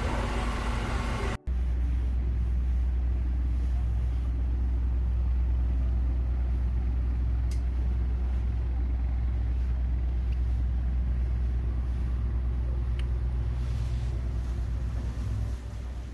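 Boat engine running with a steady low rumble. Two faint ticks sound partway through.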